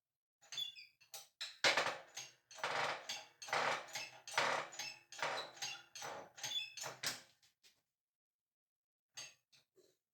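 Metal tools and parts clinking, knocking and clattering, a dense run from about two seconds in to nearly eight seconds, then a few light clinks near the end.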